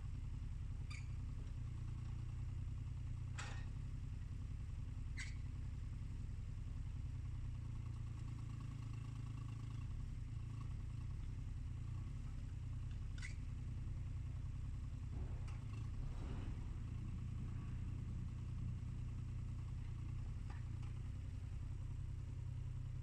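JCB mini excavator's diesel engine running at a steady speed as the machine digs, with a few short sharp clinks over the engine hum.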